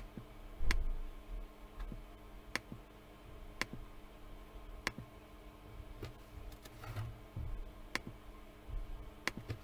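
Scattered sharp single clicks, about seven of them spaced unevenly, from a pointing device selecting tools and drawing in note-taking software. A low steady electrical hum runs beneath.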